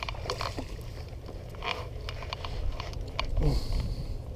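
A hooked bass splashing at the water's surface as it is reeled in and lifted out, with scattered short clicks and ticks over a steady low rumble.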